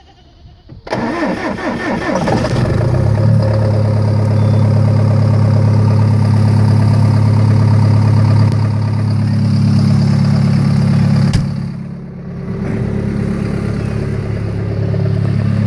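John Deere 6125M tractor's diesel engine cold-started at 16 °F with no block heater or glow plugs: it turns over about a second in, catches almost at once with a rise in pitch, and settles into a loud, steady idle. A click sounds near the end, followed by a brief dip in level before the idle comes back.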